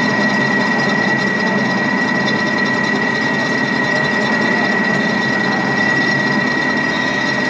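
Centre lathe running steadily with its chuck spinning a metal shaft during a turning operation: an even machine sound with a constant high-pitched whine.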